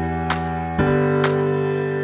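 Instrumental background music: sustained low chords with a light, bright tick about once a second. The chord changes a little under a second in.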